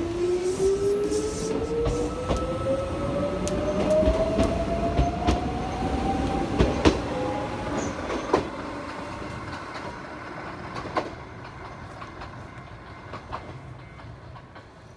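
Mizuma Railway 1000 series electric train, a former Tokyu 7000 series, pulling away from a stop. Its motor whine rises steadily in pitch for about the first seven seconds as it accelerates, with sharp clicks of the wheels over rail joints. The sound then fades as the train runs off into the distance.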